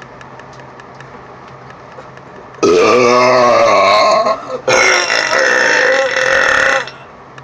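Two long, loud burps back to back, starting about two and a half seconds in. The first wavers in pitch and the second holds steadier.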